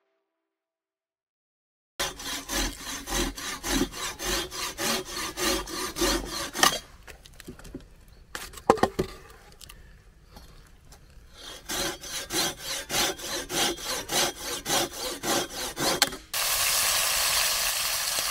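A hand saw cutting through a wooden branch resting on a log, in quick back-and-forth strokes. It starts about two seconds in and comes in two spells, with a pause of a few seconds and a few knocks between them. Near the end it gives way to a steady hiss of meat sizzling in a cast-iron Dutch oven.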